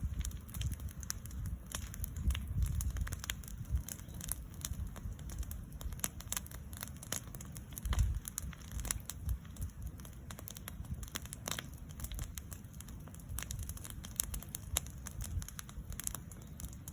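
Burn pile of cut cedar trees crackling, with many irregular sharp pops over a low rumble.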